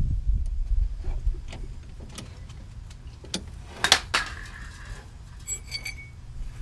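Scattered metal clicks and taps of hands and tools working on a mini Jeep's shifter linkage, with one sharp clank about four seconds in and a short metallic ringing after it.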